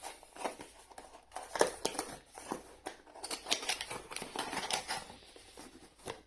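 Packaging being handled and opened: irregular rustles, crinkles and small clicks from small parts boxes and their wrapping.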